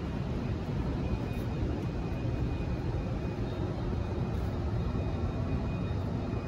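Steady low rumbling background noise with a faint, steady high-pitched tone over it.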